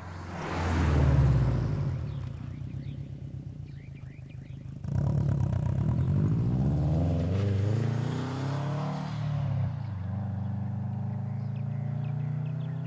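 2015 Subaru STI's turbocharged flat-four running through a COBB turbo-back exhaust and being revved: a quick rev about a second in, then from about five seconds in the revs rise and fall for several seconds before settling to a steady idle near the end.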